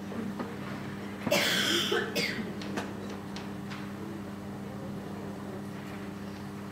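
A person coughs about a second and a half in, with a shorter cough just after, over a steady low hum.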